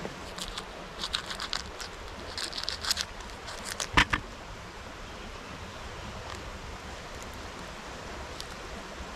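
Steady rushing water noise, with a scatter of sharp clicks and taps between about one and three seconds in and one louder sharp click about four seconds in.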